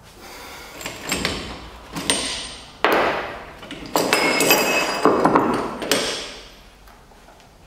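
Steel clanking and clinking as a three-jaw gear puller is handled and lifted off a rear wheel hub resting on a wooden block: a string of knocks, the loudest between about three and six seconds in, several with a short metallic ring.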